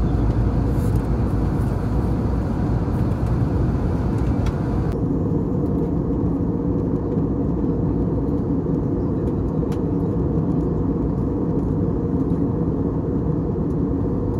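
Steady low rumble of engine and airflow noise inside an airliner cabin in flight. About five seconds in, the higher hiss drops away while the low rumble carries on.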